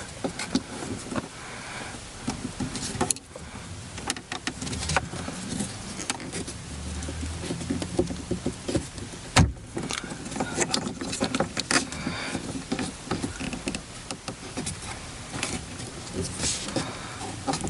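Handling noise from a Ram Mount adapter being twisted on by hand: hard plastic and metal mount parts clicking, scraping and rubbing irregularly, with one sharp click about nine and a half seconds in.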